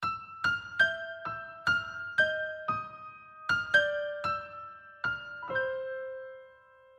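Instrumental piano intro of a pop song, starting suddenly out of silence: single melody notes about two a second, each ringing and fading. Near the end one lower note is left to die away.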